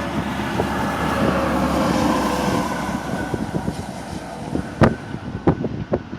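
Steady engine and road noise of a truck heard from inside the cab. In the second half come several sharp knocks, the loudest about five seconds in.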